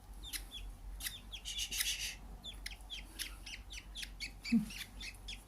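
Baby budgerigars chirping in a quick run of short, falling peeps, with a brief raspy call about a second and a half in.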